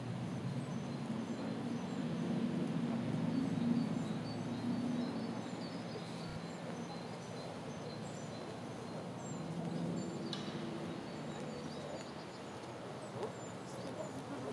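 Outdoor ambience: small birds chirping in short repeated calls over a low, steady rumble of city traffic, with a brief click about ten seconds in.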